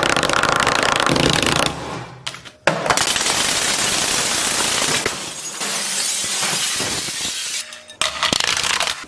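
Loud, harsh crashing and smashing noise. It breaks off briefly about two seconds in, comes back with a sharp bang, and grows loud again near the end.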